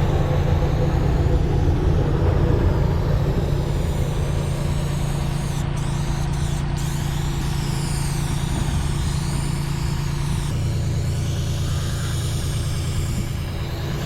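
Engine running steadily at idle, its low hum shifting in pitch about ten and a half seconds in.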